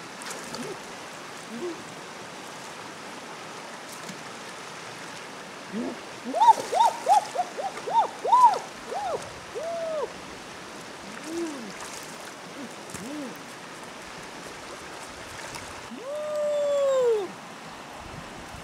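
Steady rush of a shallow forest stream. Over it come short, clear pitched calls that rise and fall: a quick run of about ten near the middle, and one longer call near the end.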